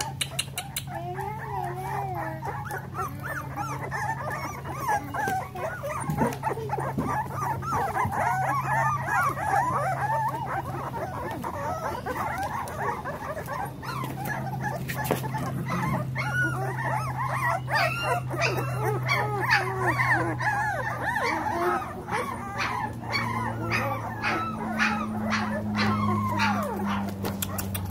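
A litter of very young blue nose pit bull puppies whining and squealing, many wavering high cries overlapping one after another, over a steady low hum.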